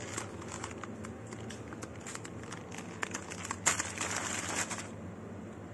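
Thin plastic bakery bag being handled, crinkling and crackling in irregular small clicks, with a louder burst of rustling a little under four seconds in.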